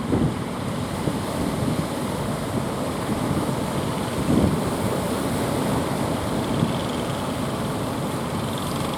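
Wind buffeting the microphone in gusts over a steady rush of sea surf.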